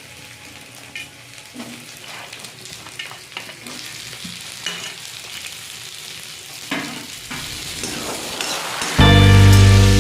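Food sizzling as it fries in hot oil in a pan, with scattered clicks of a spoon stirring against the pan. About nine seconds in, loud background music starts suddenly.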